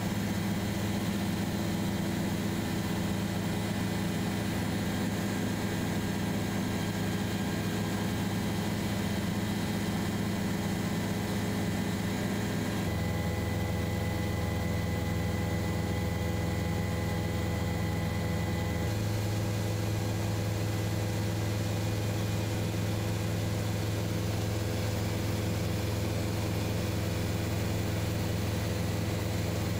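Steady drone of a helicopter's engine and rotor heard from on board, with a constant hum; its tone changes slightly twice, about 13 and 19 seconds in.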